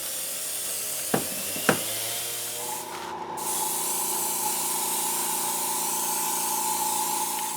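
Paint being sprayed onto the figure: a steady hiss that breaks off briefly about three seconds in and then resumes. Two sharp clicks come in the first two seconds, and a steady humming tone joins from about three seconds in.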